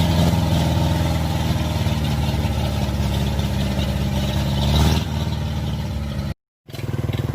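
Kubota DC-70 Plus rice combine harvester's diesel engine running steadily. It swells briefly about five seconds in, then eases off, and the sound cuts out for a moment shortly before the end.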